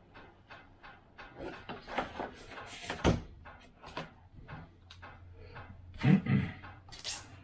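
Clicks and knocks of small 3D-printed plastic model-plane parts being handled and fitted together, with a louder knock about three seconds in and two more near the end.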